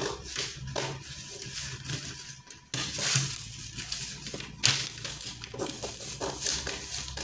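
Scissors snipping through pattern paper in a run of short cuts, a couple of them louder than the rest.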